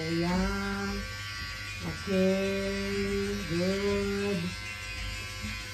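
Electric hair clippers buzzing steadily while cutting hair at the nape of the neck. The buzz sags in pitch and recovers a few times, with a brief break about two seconds in.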